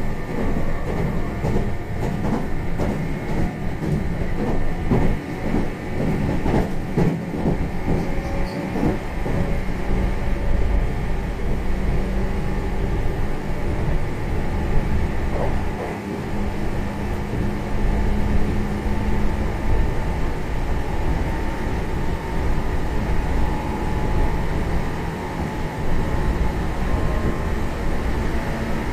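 Running sound inside a Meitetsu 1200 series train car as it accelerates toward 120 km/h: a continuous rumble with steady motor tones. Wheels clatter over rail joints, most in the first several seconds.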